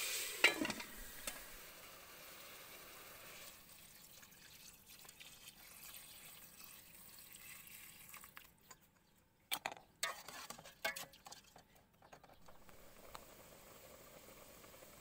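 Chicken sizzling in a steel pot at the start, then water poured in and splashing into the pot. A few sharp knocks come about two-thirds of the way through, then the broth bubbles steadily at the boil.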